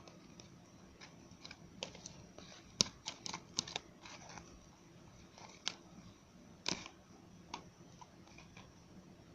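Freshly made marshmallow slime being handled and squished, giving irregular sticky clicks and small pops, with a quick cluster of them about three to four seconds in and another near seven seconds.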